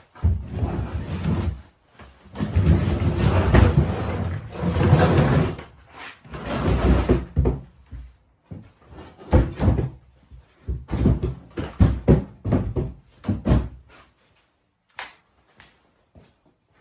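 Wooden cupboard units being shifted and knocked about: several seconds of scraping and bumping, then a string of separate knocks and bangs, stopping about three seconds before the end.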